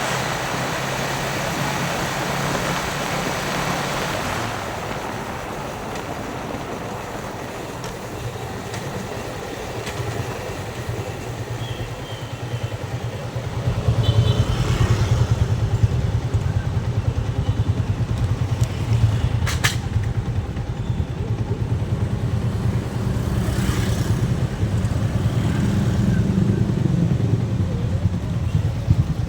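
Yamaha Vixion's single-cylinder four-stroke engine running under way, with wind and road rush. The engine hum grows louder about halfway through, and a single sharp click comes about two-thirds in.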